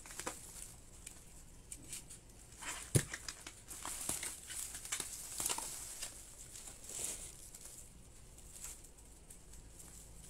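Bubble-wrap and plastic packaging being cut open and pulled off by hand, crinkling and rustling with scattered sharp clicks and one louder snap about three seconds in. The item is double-wrapped, clear bubble wrap over black bubble wrap.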